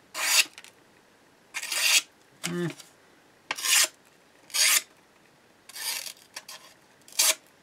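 The thin, fine-ground blade of a Ferrum Forge Gent folding knife slicing through paper in about seven short, rasping cuts, each under half a second. This is a paper-slicing test of the edge's out-of-the-box sharpness.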